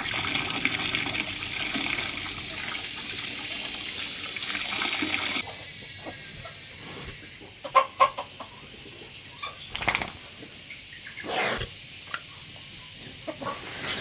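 A steady pouring hiss for about five seconds that stops suddenly, followed by chickens clucking and a few sharp knocks.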